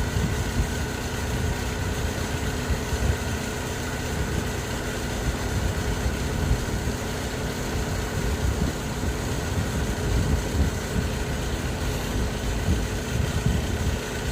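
Steady engine-like machine hum with a low, uneven rumble beneath it.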